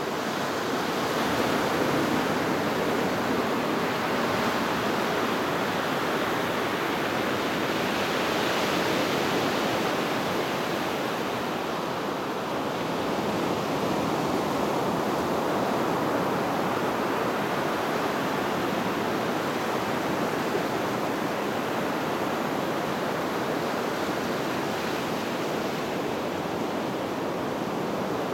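Ocean surf: small waves breaking and washing up a sandy beach. It is a steady rush of water that swells and eases gently every several seconds.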